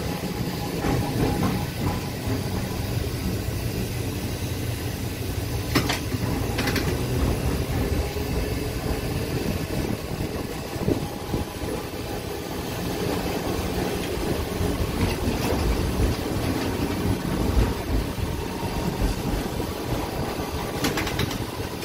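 TECO Line electric streetcar heard from inside the car as it runs along its track: a steady low rumble of wheels and running gear on the rails, with a few sharp clicks about six seconds in and again near the end.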